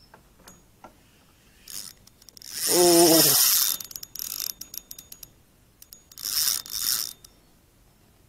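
Spinning fishing reel working as the rod is handled: rapid ratcheting clicks and bursts of whirring. About three seconds in, a short falling tone sounds within the loudest burst, and two shorter whirring bursts come near the end.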